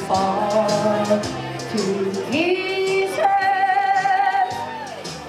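A woman singing into a microphone over backing music, holding long notes with vibrato and swooping up to a higher note about halfway through; the sound grows quieter near the end.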